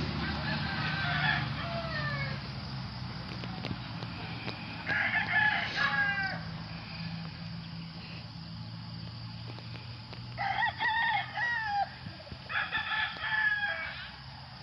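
Rooster crowing about four times, each crow lasting a second or two, over a low steady hum.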